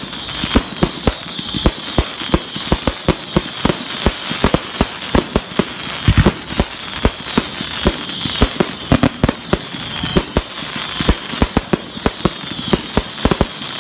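Aerial fireworks exploding in rapid succession: several sharp bangs a second over a continuous crackling hiss.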